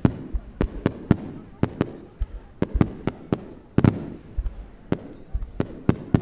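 Star mine fireworks barrage: aerial shells bursting in quick, irregular succession, several sharp bangs a second over a continuous low rumble.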